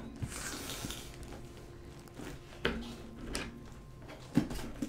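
A cardboard shipping box being opened by hand: rustling and scraping of cardboard and packing, with a few short knocks, the sharpest near the middle and near the end.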